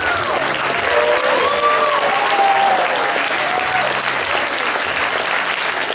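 A hall audience applauding steadily, with voices calling out over the clapping during the first few seconds.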